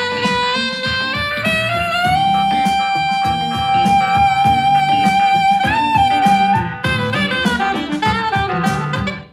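Music played through a Bose SoundLink portable Bluetooth speaker for a sound test: a held lead melody that slides up in pitch about two seconds in, over drums and bass. It stops abruptly at the very end.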